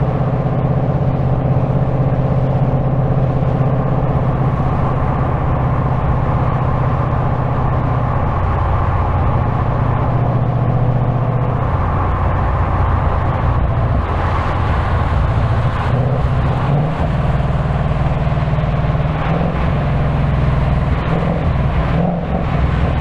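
2025 Ford Mustang GT's 5.0-litre V8 running under way, with a steady low engine note that shifts in pitch about halfway through. Tyre and wind noise rise in the second half.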